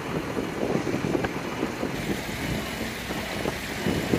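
Large farm tractors' diesel engines running as they tow show trucks out of deep mud.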